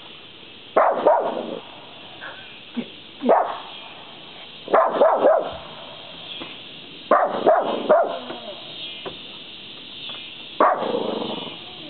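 Small dog barking at a deer, in short bouts of one to three barks every couple of seconds.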